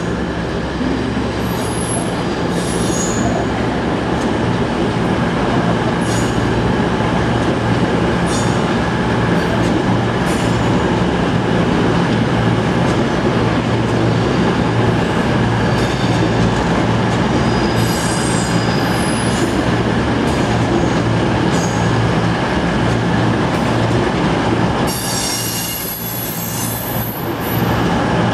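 Class 37 diesel locomotive's English Electric V12 engine running under power, a steady deep drone, with high-pitched wheel squeal coming and going. About 25 seconds in the engine note drops briefly, then picks up again near the end.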